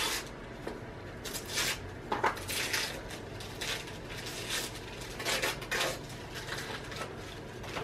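Gift wrapping being torn and handled by hand: paper crinkling and rustling in short, irregular rustles as a small present is unwrapped.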